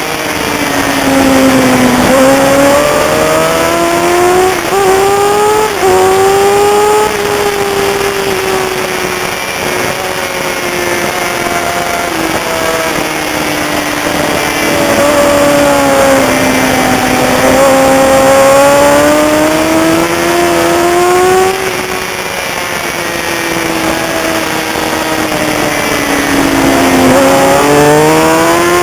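Racing motorcycle engine at high revs, its pitch climbing under acceleration, breaking briefly at gear shifts, then sinking slowly as the throttle eases, several times over, with steady wind and road noise underneath.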